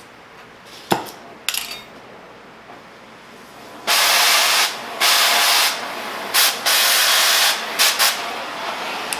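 An oxy-acetylene cutting torch: two sharp metal clicks, then from about four seconds in a loud gas hiss that starts and stops in several spurts over a quieter steady flame hiss.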